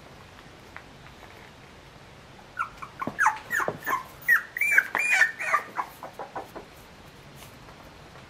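Three-week-old San'in Shiba puppy crying: a quick run of short, high-pitched cries, many falling in pitch, starting about two and a half seconds in and lasting about four seconds.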